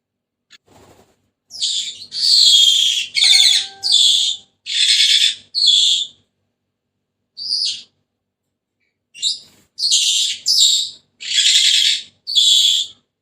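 Senegal parrot giving loud, harsh, high-pitched calls in quick runs: about six in a row, a single short call, then about five more.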